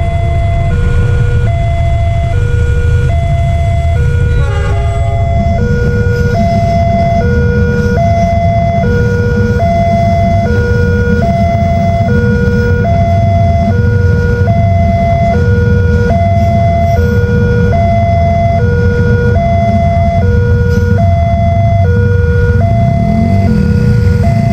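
Railway level-crossing alarm sounding a repeating two-tone high-low warning, over the steady low rumble of a diesel-hauled train of fuel tank wagons rolling through the crossing.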